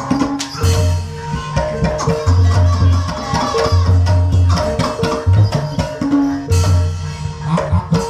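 Ebeg gamelan music: a repeating melody of struck pitched notes over drumming, with deep bass-drum beats every second or so.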